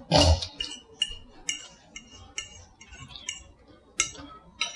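Metal fork clinking and scraping on a ceramic plate while picking up Caesar salad, with a short sharp click about every half second and a louder knock right at the start.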